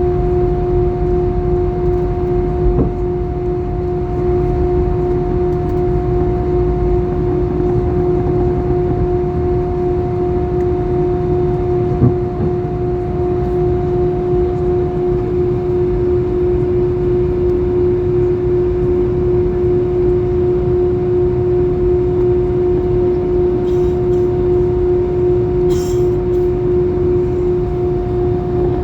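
Airbus A320 jet engines heard from inside the cabin: a steady drone with a constant whine over a low rumble, unchanging in pitch. A brief click sounds about twelve seconds in.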